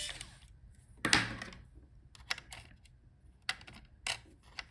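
Sharp plastic knock about a second in, then a scatter of light clicks and taps: the laptop's cover over the secondary M.2 SSD slot being taken off.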